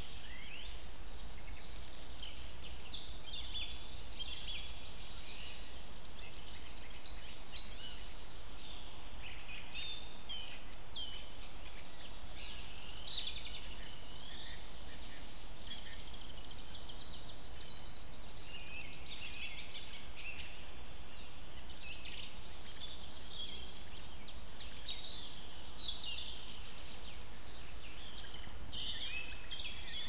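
Small birds chirping and calling, many short high notes scattered throughout, over a steady low hiss.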